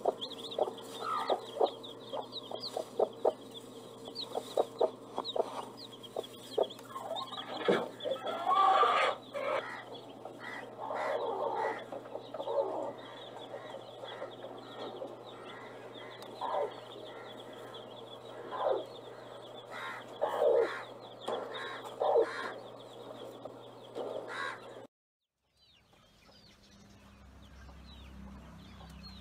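Chickens clucking, with irregular short calls over a steady hum and faint high chirps throughout. About 25 seconds in, the sound cuts off abruptly, leaving a quieter stretch with a low hum and faint high chirps.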